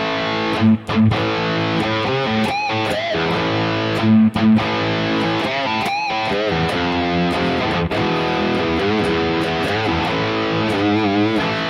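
High-gain distorted electric guitar played through a Harley Benton DNAfx Git Pro modeler, a tube screamer driving a Brit Plexi amp model into a 4x12 cab. The playing is sustained lead notes with wide vibrato and string bends.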